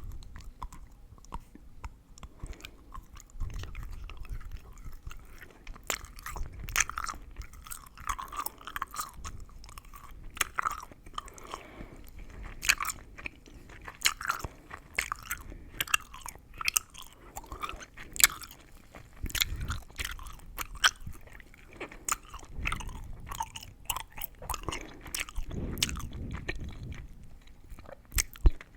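Chewing gum being chewed close to the microphone, with wet mouth sounds and many sharp crackles and clicks at an irregular pace.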